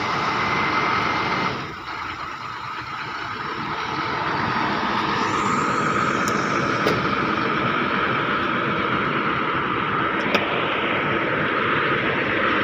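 Heavy truck engine running with a steady high whine over it. The sound drops briefly about two seconds in, then builds back up and holds steady.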